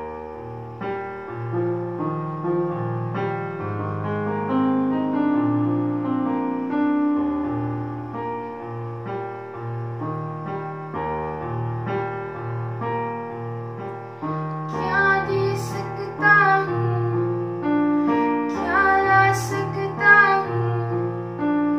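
Electronic keyboard playing a prayer song's instrumental introduction in held chords over a changing bass line. A girl's solo voice starts singing about fifteen seconds in, with the keyboard accompanying.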